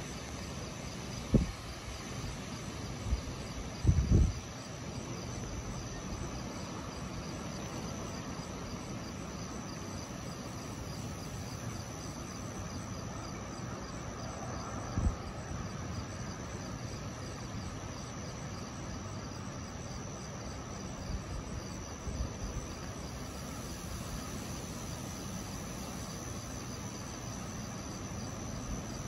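Night insects chirping in a steady, high, pulsing chorus over a low, steady background rumble. A few short, low thumps break in: about a second in, around four seconds in, and about fifteen seconds in.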